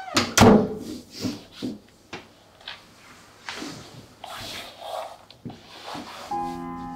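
A door slams shut about half a second in. Then a woman breathes heavily in uneven, separate breaths, and soft sustained music notes come in near the end.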